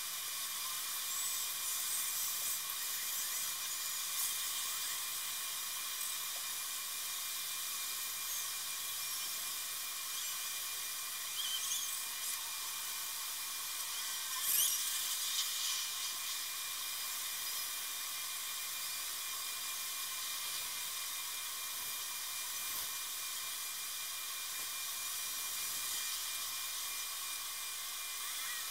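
Steady high-pitched hiss with almost no low end. A few faint brief chirps or squeaks sit over it, and there are two short louder high bursts a little before and just after the halfway point.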